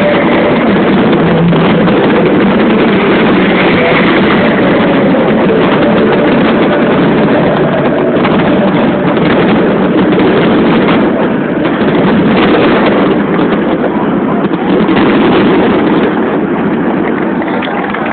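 Fireworks finale: a dense, continuous barrage of aerial shells bursting and crackling, easing off a little near the end.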